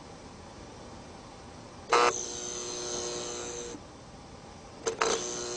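A loud buzzing, horn-like tone sounds twice. The first starts with a sharp click about two seconds in and holds steady for nearly two seconds before cutting off suddenly. After a click about five seconds in, it starts again.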